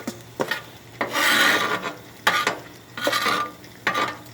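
Scraping strokes across a flat-top griddle, about six of them, the longest about a second in.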